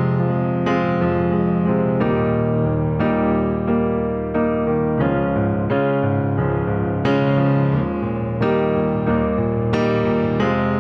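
Background music: slow, gentle piano, a new note or chord struck about once a second and left to ring.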